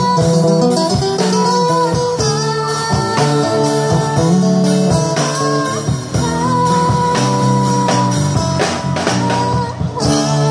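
Live band music: electric guitar and drum kit playing a song, steady and loud.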